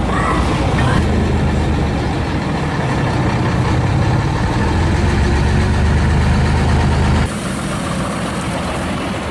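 Full-size diesel locomotive engine running steadily with a deep, even drone. About seven seconds in it cuts off abruptly to a quieter engine sound.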